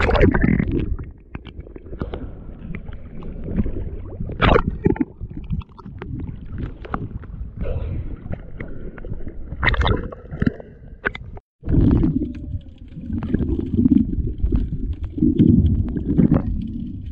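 Seawater sloshing and gurgling around a diver's camera as it moves between underwater and the surface, with a low rumble and sharp splashes throughout. The sound drops out for an instant a little past the middle.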